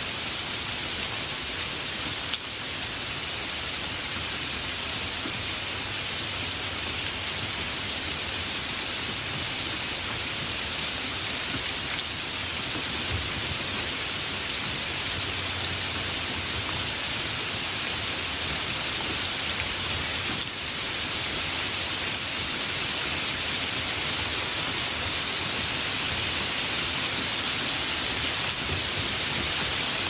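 Light rain falling steadily, an even hiss of rainfall, with two brief dips in level, a couple of seconds in and about two-thirds of the way through.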